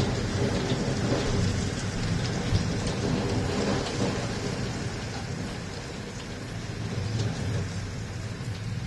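Rain falling steadily, with a deep low rumble underneath that eases about six seconds in and then builds again.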